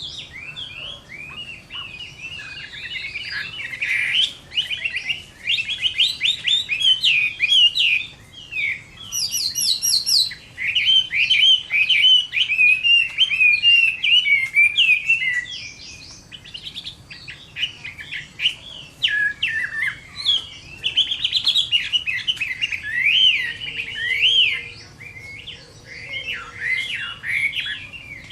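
A Chinese hwamei (melodious laughingthrush) singing a long, varied song of rapid whistled phrases, with a brief very high, fast trill about a third of the way through.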